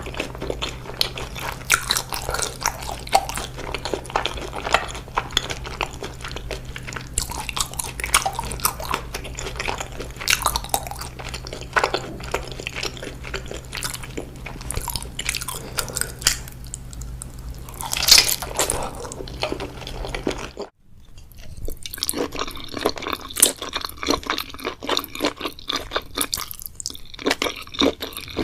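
Close-miked eating of seaweed: crisp crunching bites and chewing, a dense irregular run of crackles. About two-thirds of the way through, the sound drops out for a moment and a low steady hum beneath it stops, after which the crunching goes on.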